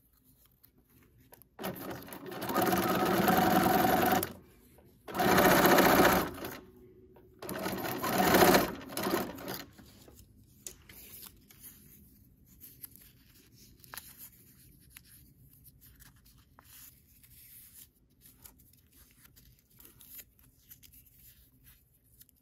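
Bernina electric sewing machine stitching through paper in three short runs, each a second or two long, within the first nine seconds. After that only faint scattered clicks are heard.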